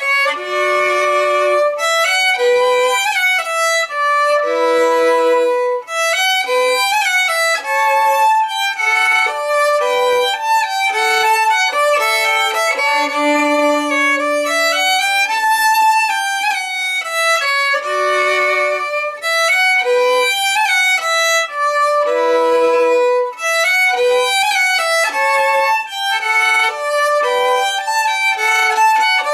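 Solo violin playing a bowed melody of distinct, sustained notes, with one long low note held for about two seconds near the middle.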